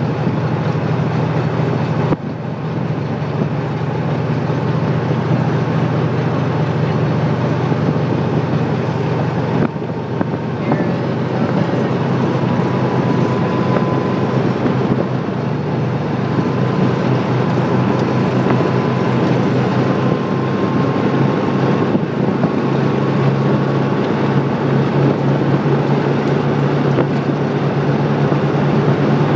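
Steady engine and road noise heard from inside a moving vehicle driving a forest road, with a faint thin whistle through the middle.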